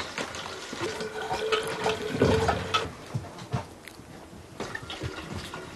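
Water running from a plastic water cooler's spigot into an enamel pitcher, with scattered knocks and clicks as a wolf pup paws at the pitcher. A steady tone holds for about two seconds in the first half, and there is a louder thump a little past two seconds in.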